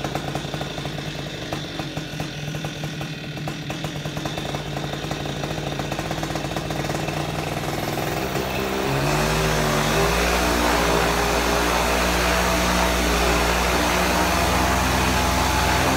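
Two-stroke paramotor engine running at low throttle, then throttled up about halfway through, its pitch rising and settling into a louder, steady higher-rpm run.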